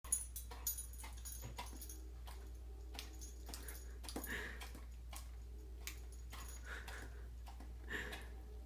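A dog smacking and licking at peanut butter stuck to the roof of its mouth: a string of irregular wet clicks and smacks, with a few louder smacks about four, seven and eight seconds in.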